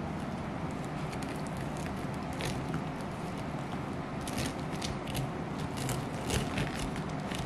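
A long knife sawing down through a crumble-topped baked slab, the dry crumbly crust crackling and the blade scraping on the paper beneath, busiest in the second half.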